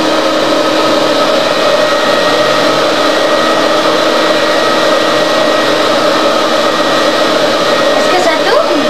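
Loud steady whirring hum of an appliance motor running, holding a few fixed tones.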